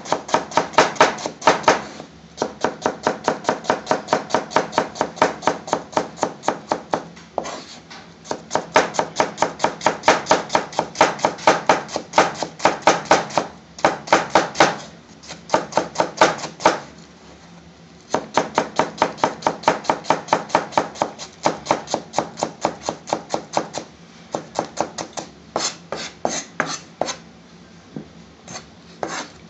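Kitchen knife rapidly chopping onion finely on a green plastic chopping board: quick, even knocks of the blade on the board, about four a second, in runs broken by brief pauses.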